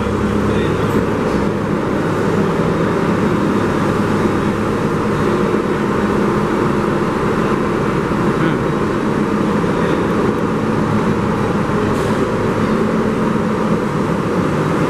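New York City subway train running, a steady loud rumble of wheels on rails.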